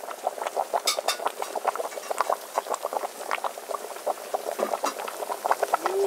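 A pot of fish soup at a hard boil: a rapid, irregular popping and bubbling of broth. Two sharper clicks come about a second in.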